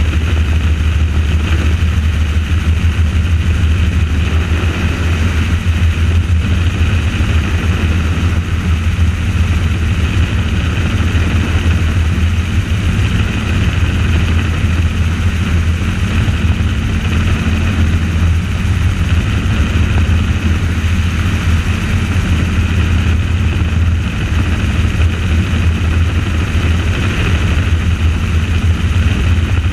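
Helicopter engine and rotor running steadily in flight: a loud, constant drone with a strong low hum.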